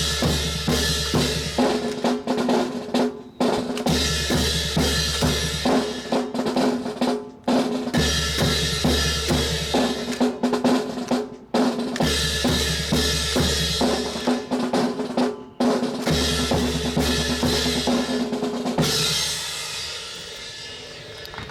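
Marching drum corps of snare drums, bass drums and cymbals playing a cadence in phrases that repeat about every four seconds. The drumming breaks off about nineteen seconds in, and the sound dies away.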